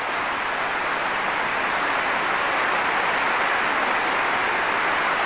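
Audience applauding, growing louder over the first two seconds and then holding steady.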